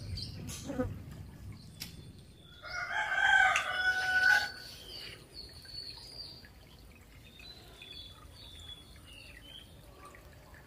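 A rooster crows once, a single call lasting about two seconds and starting about two and a half seconds in, followed by faint, scattered bird chirps.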